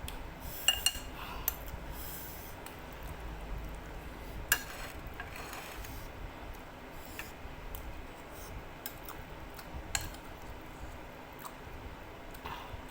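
Eating sounds: cutlery clinking sharply against a bowl a few times, with smaller clicks and rustles in between, over the steady hum of an electric fan.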